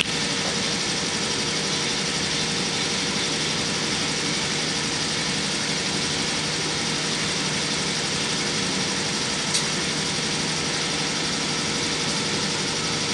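Steady mechanical hum and hiss of background machinery, even in level throughout, with one light click about ten seconds in.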